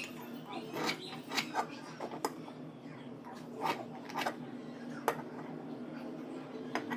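Metal workshop handling: a scatter of short clicks and scrapes, the sharpest about five seconds in, over a steady machine hum.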